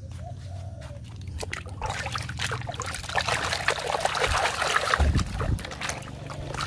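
A hand swishing and splashing in a metal basin of foamy water, washing a muddy toy; it is quiet at first and the sloshing starts about two seconds in.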